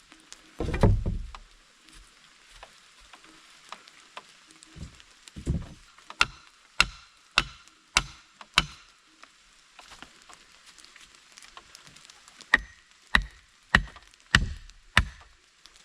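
Wood being chopped: a heavy thud about a second in, then two runs of sharp, even strikes a little over half a second apart.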